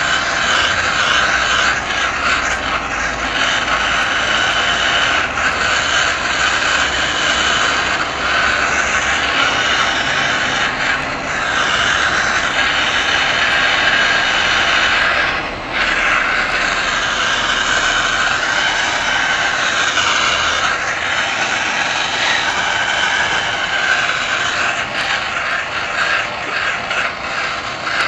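Handheld propane torch burning steadily, a loud even rushing hiss of flame, with a brief dip about fifteen and a half seconds in.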